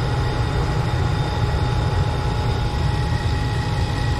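Gas furnace running steadily with its newly replaced blower motor up to speed and the burners lit: an even low rumble of air and motor with a faint steady whine above it, the sign of a blower now working properly after the old one seized.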